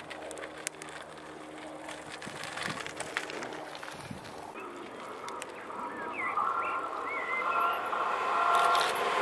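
A bicycle rolling on a dirt path with a steady hum and light clicking. Then a few bird chirps, and a Railjet passenger train approaching, its whining, several-toned sound growing steadily louder over the last few seconds.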